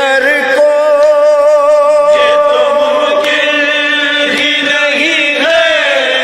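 Wordless vocal chorus chanting long, slowly bending held notes, with no instruments: the humming backing between the sung lines of a noha lament.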